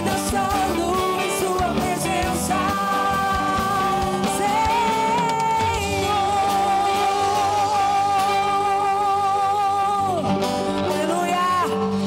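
Live worship music: a band with guitar, and singing that holds long notes with vibrato through the middle.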